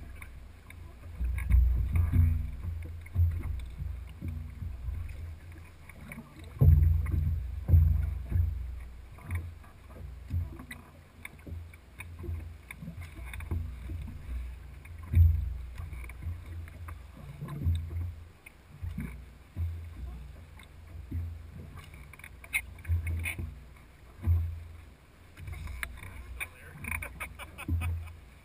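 Water lapping and slapping against a boat hull in irregular low thumps, with some light clicking near the end.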